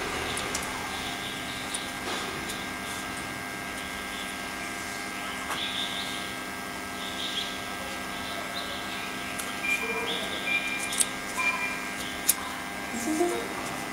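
Steady machine hum under scattered small clicks and taps from small parts and a power cord being handled, with more clicks about two thirds of the way through.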